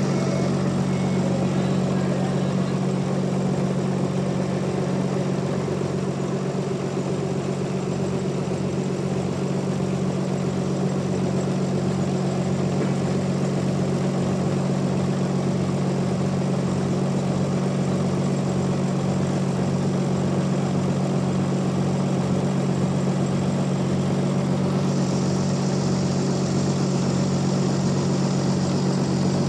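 Bandsaw mill running steadily with a constant low machine hum. A brighter hiss comes in near the end.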